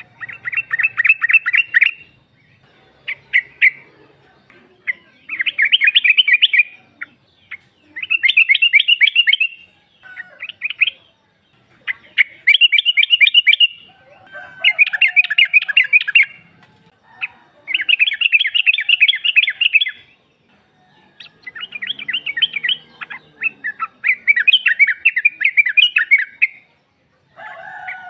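Female yellow-vented bulbul (trucuk) calling in repeated bursts of rapid chattering notes, each burst lasting one to two seconds with short gaps between them. It is a female's call to a male, used as a lure to draw a male into answering.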